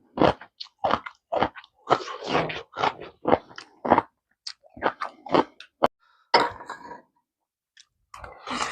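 A person chewing a mouthful of pork kimchi stew, picked up close by the microphone. It is a quick run of short chewing sounds, about two or three a second, with a brief pause past the middle before the chewing starts again.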